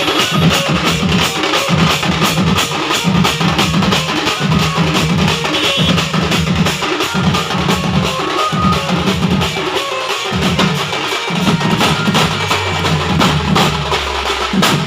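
Loud band music from a sound band: drums keep a fast, steady beat under other instruments.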